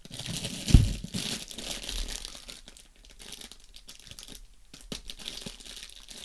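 Plastic packaging crinkling and rustling as it is handled and unwrapped, with small clicks and one dull thump a little under a second in.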